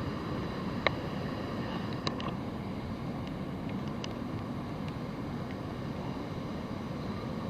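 Wind rumbling steadily on a handheld camera's microphone outdoors, with a couple of faint clicks, one about a second in and another about two seconds in.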